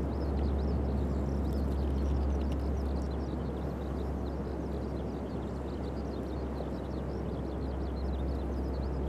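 Ocean surf on a sandy beach: a steady wash of breaking waves with a deep, continuous low rumble. Faint, quick high chirps run through it.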